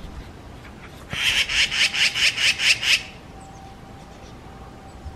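Magpie giving a harsh, rattling scold: a quick run of about nine rasping notes, about five a second, starting about a second in and lasting under two seconds. It is an alarm chatter used when mobbing a predator.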